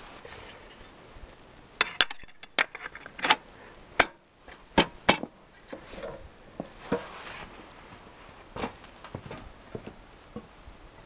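Sharp clicks and knocks of parts being handled, then the orange recoil starter cover being fitted over the flywheel of a Soviet Ural-2 chainsaw, with a short rubbing sound as it seats. The knocks cluster in the first half, with fewer and softer ones later.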